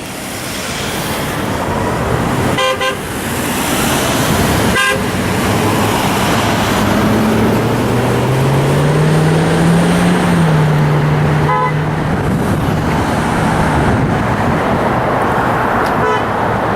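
Steady rush of freeway traffic passing below: tyres and engines. Short car-horn toots come about 3 s in, about 12 s in and faintly near the end. In the middle a vehicle's engine drone rises, then falls in pitch as it passes.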